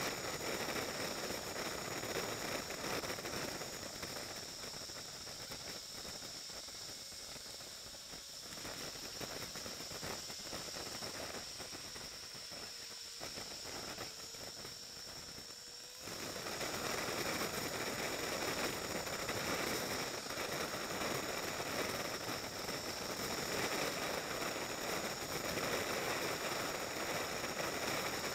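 A motorcycle on the move, heard as a steady rush of wind and road noise over the microphone with the engine underneath and some crackly buffeting. It eases off for a while in slow traffic, then jumps suddenly louder about halfway through and stays steady.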